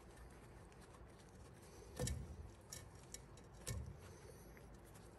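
Faint clicks and light metal taps as a steel brake line's flare nut is turned by hand into a new wheel cylinder, with a couple of soft knocks, about two seconds in and again a little past three and a half seconds.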